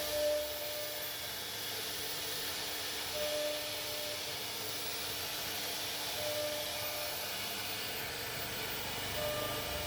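CNC router running and cutting: a steady whirring hiss with a constant hum underneath, and a brief louder tone that comes about every three seconds.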